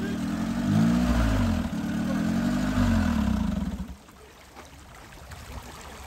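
Off-road 4x4's engine revving hard in two swells, the pitch rising and falling each time, as the vehicle climbs over a rock block under load. The engine note drops away sharply about four seconds in.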